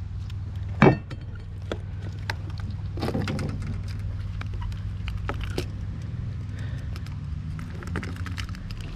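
Hands unhooking a jointed glidebait from a largemouth bass: scattered light clicks and clinks of the hooks and hard plastic lure, with one sharper knock about a second in, over a steady low hum.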